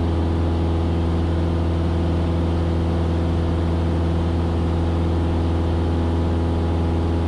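Cessna 172S's four-cylinder Lycoming IO-360 engine and propeller droning steadily in flight, heard from inside the cockpit, with a deep hum and a stack of steady overtones.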